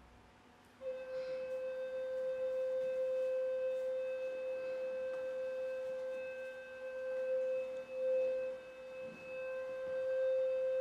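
A single high, nearly pure tone held long and steady on a small wind instrument blown by the seated performer. It starts just under a second in and wavers and dips briefly about eight seconds in before steadying again.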